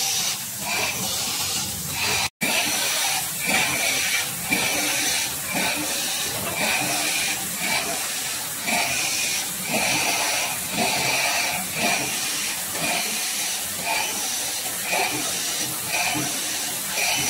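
Automatic cup screen printing machine running: a steady hiss with a quick, even rhythm of repeating mechanical strokes as it cycles through cups. The sound drops out for an instant a little over two seconds in.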